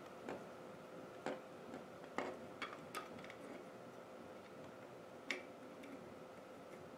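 Faint scattered clicks and light taps, about six in the first five seconds, from a soldering iron's tip working against a small circuit board while a capacitor is desoldered, over a faint steady hum.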